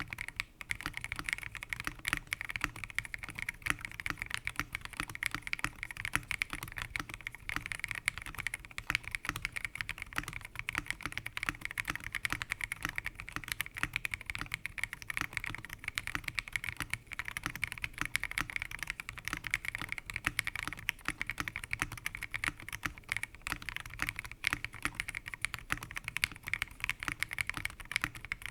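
Continuous fast typing on an Ajazz First Blood B67 gasket-mounted mechanical keyboard with Kailh linear switches, MDA-profile keycaps and an acrylic case: a dense, unbroken stream of keystrokes.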